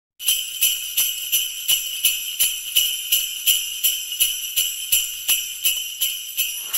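Jingle bells shaken in a steady rhythm, about three shakes a second, starting just after the opening.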